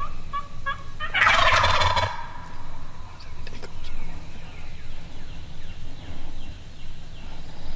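A wild turkey gobbler gobbles once, loud and rattling, about a second in. Just before it comes a short run of evenly spaced turkey yelps. A faint low rumble runs underneath.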